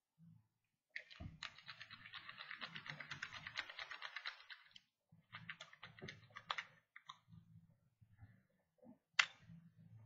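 A lock pick rattling over the pin tumblers of a Master Lock No. 3 padlock. A fast run of small clicks lasts about four seconds, a shorter run follows after a brief pause, and one sharp click comes near the end.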